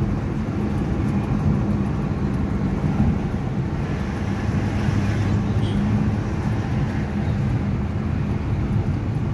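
Car engine running steadily with tyre and road noise, heard from inside the cabin of a manual car being driven in fourth gear.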